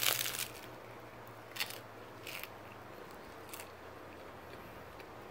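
A bite into a crisp puffed rice cake: one loud crunch, then three short, fainter crunches over the next few seconds as it is chewed.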